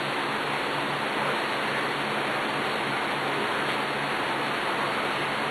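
A steady, even hiss with a faint low hum beneath it; no distinct events stand out.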